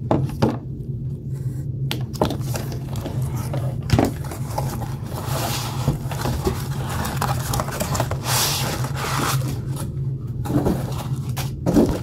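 Cardboard box and foam packing inserts being handled, scraping and rustling, with a few knocks, the loudest about four seconds in. A steady low hum runs underneath.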